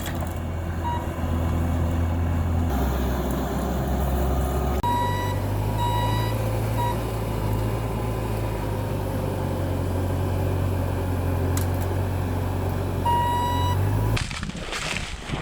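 A vehicle engine running steadily, its pitch shifting in steps a couple of times, then stopping near the end. Short high beeps sound on and off over the engine.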